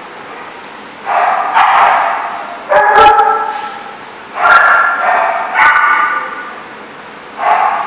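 A dog barking repeatedly: about six loud barks a second or so apart, each trailing off in echo.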